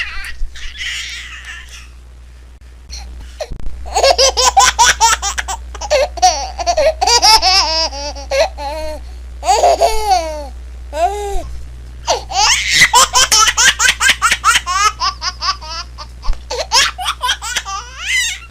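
A baby laughing in several bouts of quick, rapid-fire laughs, starting a few seconds in after a quiet pause, with short breaks between bouts.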